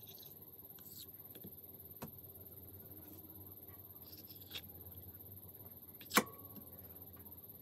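Quiet kitchen knife work as a knife trims the edges of stacked rolled dough layers. A few light taps and clicks are heard, with one sharp click about six seconds in, over a faint steady hiss.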